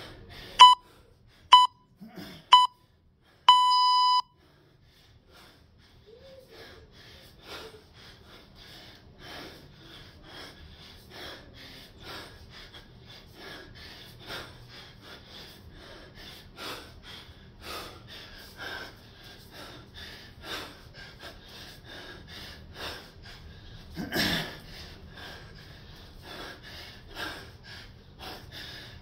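An electronic workout interval timer beeps three short beeps about a second apart, then one long beep. After that, an athlete breathes hard and fast in an even rhythm while snatching a 24 kg kettlebell, with one louder, sharper breath late on.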